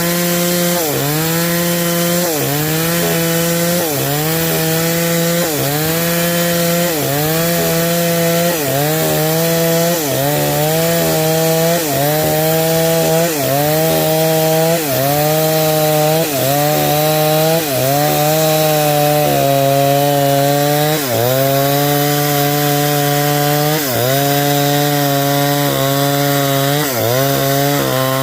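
Stihl 070 chainsaw, a big single-cylinder two-stroke, running at high revs under load as it rips lengthwise through timber. Its pitch dips briefly and recovers about every one and a half to two seconds as the engine bogs in the cut.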